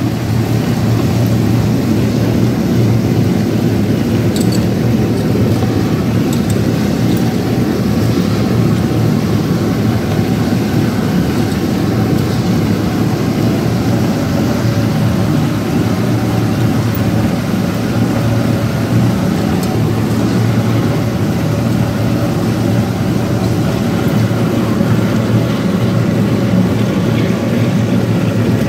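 Tabletop wet grinder running steadily, its stone rollers churning soaked rice into idli batter: a continuous motor hum with a wet grinding rumble.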